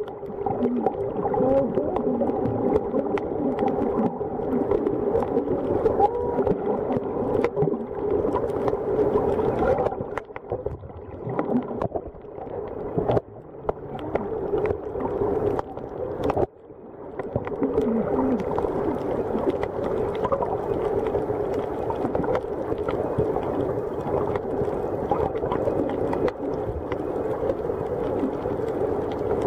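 Underwater sound picked up by a waterproof camera's microphone while snorkeling over a reef: a muffled, steady hum with watery gurgles and short wavering tones. It drops off briefly twice, a little after ten seconds in and again around sixteen seconds.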